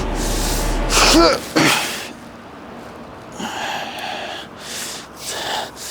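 A man grunting with effort and breathing hard in short, heavy breaths while hauling a heavy catch on a magnet fishing rope.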